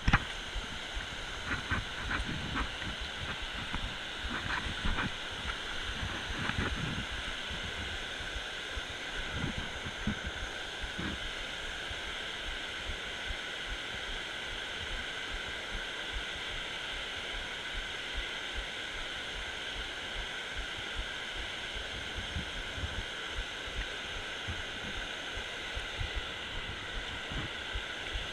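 Steady rush of water pouring over a low-head dam spillway. Low bumps on the microphone come often in the first several seconds, then only now and then.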